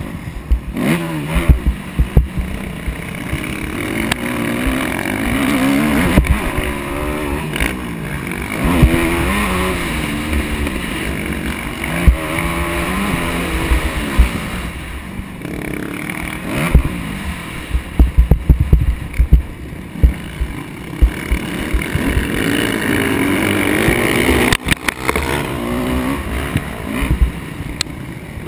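Motocross dirt bike engine revving up and down again and again as the rider accelerates and backs off around the track, heard from a helmet-mounted camera, with low thumps and rumble on the microphone throughout.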